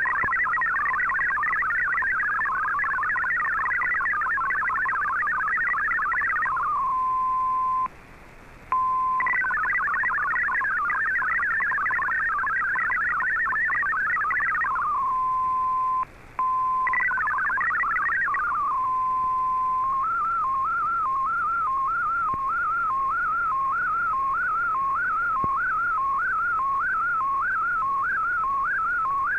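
MFSK digital-mode data from a shortwave broadcast received on an Icom IC-R8600: a fast warble of hopping tones between about 1 and 2 kHz, pausing on a steady single tone between text blocks, with two brief dropouts. About 20 s in it changes to an evenly repeating rising-and-falling warble, the data of a picture being sent in MFSK.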